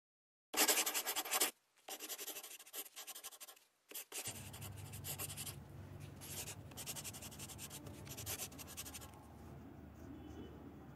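Paintbrush bristles brushing over a cucumber's skin in a series of strokes, each about a second long. A steady low hum joins about four seconds in.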